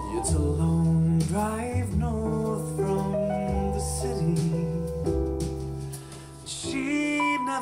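A pop song with piano, a deep bass line and a singing voice, played through a portable Bluetooth speaker and recorded in the room.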